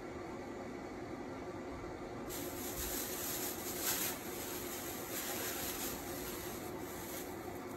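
Plastic bag rustling and fresh herb leaves being pulled out and torn by hand, a crackly rustle that starts about two seconds in and swells briefly a couple of times, over a steady low hum.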